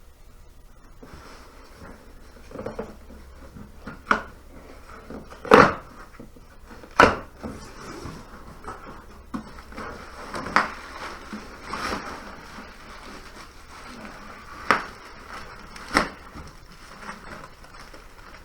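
A parts package being opened and handled: rustling packaging with a series of sharp, irregular clicks and knocks, the loudest about five and a half and seven seconds in.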